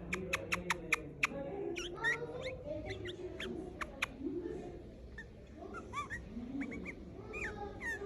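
Red-vented bulbul calling: a quick run of sharp clicks in the first second or so, then scattered short chirps that slide in pitch.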